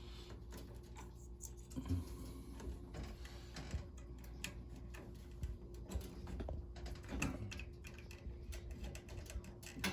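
Light, irregular clicks and taps of insulated wire spade connectors being handled and pushed onto the neutral terminals of a gas furnace control board, over a steady low hum.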